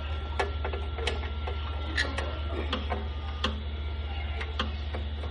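Irregular sharp clicks and taps, about a dozen, from parts of a paper cutter's side guide being handled and fitted, over a steady low machine hum.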